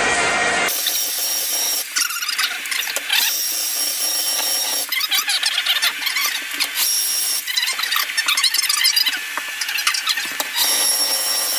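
Large angle grinder with a 100-grit wet polishing pad running on a Fantasy Brown stone countertop seam. It whines at a high pitch with a gritty scraping as the pad grinds down a crown in the stone. A fuller, louder noise in the first second cuts off abruptly.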